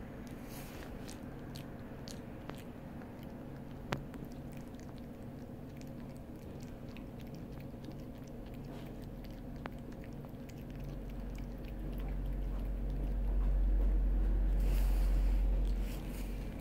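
Longhaired dachshund puppy chewing pieces of jerky, with scattered small clicks and one sharp click about four seconds in. A low rumble swells from about two-thirds of the way through and is the loudest sound until just before the end.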